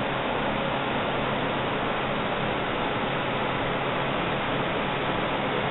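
Steady, even hiss with nothing else standing out; it neither rises nor falls.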